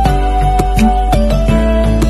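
Background music: a melody of long held notes over a bass line and a steady beat.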